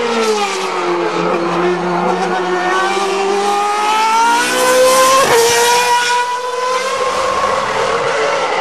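Single-seater race car engine at high revs. Its pitch drops as it slows into a bend, then climbs steadily as it accelerates out. There is a quick upshift about five seconds in, after which it keeps pulling.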